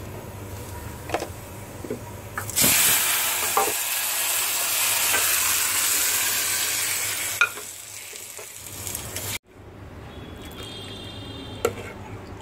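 Hot tempering oil with dried red chillies poured from a small pan into tamarind water with sliced onions, sizzling loudly for about five seconds before it dies away. A few light spoon taps come before the sizzle.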